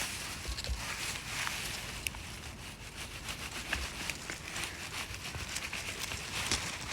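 Rustling and light crackling of forest-floor litter as someone moves about and handles things, with scattered small snaps and a few soft low thumps.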